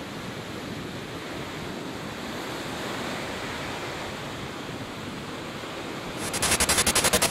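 Steady wash of ocean surf and wind. About six seconds in, a loud, rapidly pulsing sound cuts in over it.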